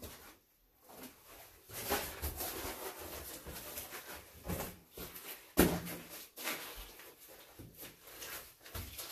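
Scuffing, scraping and crunching of someone clambering over loose rock and brushing against the rock walls of a narrow mine passage, irregular and uneven, with one sharp knock a little past halfway.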